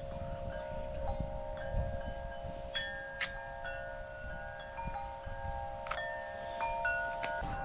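Wind chimes ringing, several overlapping tones struck again and again, over wind rumbling on the microphone.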